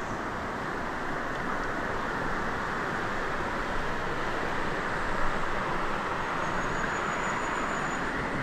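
Steady rush of flowing river water in a shallow pool, stirred by someone wading.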